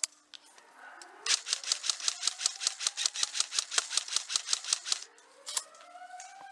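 Airsoft electric rifle firing on full auto: a long burst of rapid, evenly spaced shots lasting about three and a half seconds, then a short burst near the end, with a rising whine under the shots.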